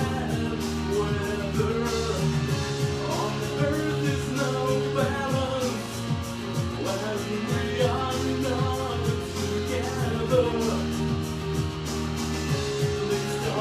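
Synthpop song played live on an electronic keyboard over a steady electronic beat and synth bass, with a man singing the melody.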